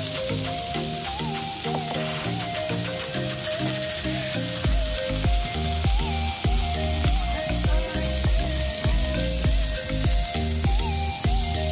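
Sliced wagyu steak sizzling on a hot iron serving plate, under background music whose bass beat comes in about five seconds in.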